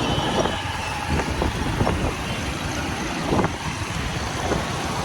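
A motor vehicle running on the road: a steady low engine and road rumble, with a few brief knocks or rattles.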